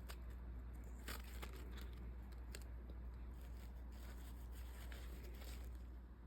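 Faint handling noise from packaging being opened: a few scattered snips, tears and crinkles, about one a second, over a steady low hum.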